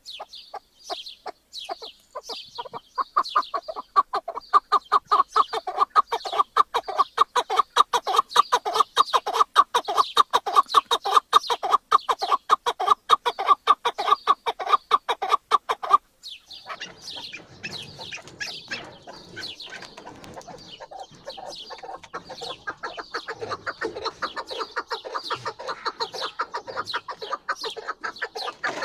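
Chukar partridge calling: a long, rapid run of repeated clucking notes that builds up and grows louder over the first few seconds. About sixteen seconds in, it cuts abruptly to another stretch of calling over a noisier background.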